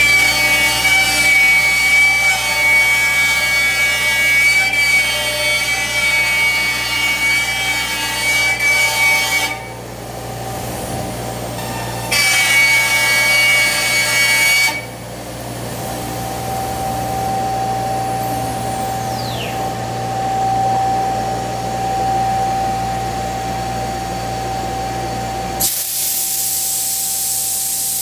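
CNC router spindle cutting a wooden sheet: two stretches of loud cutting with a high steady whine, separated by a short quieter pause. After the second cut the spindle keeps running with one steady tone and no cutting noise. A steady hiss starts suddenly near the end.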